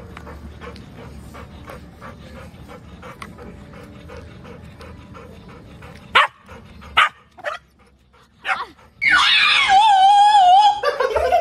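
A dog gives a few short yips, then a loud, high, wavering whine-howl about nine seconds in that lasts about two seconds.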